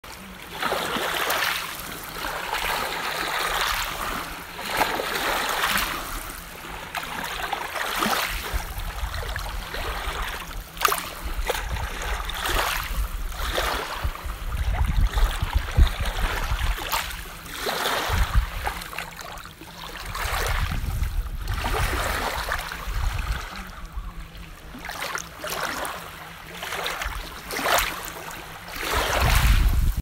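Rushing, splashing water that swells and fades every second or two.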